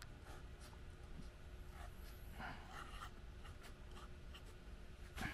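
Faint scratching of a paint marker's tip on a plastic engine-bay cover as characters are written, a series of short strokes.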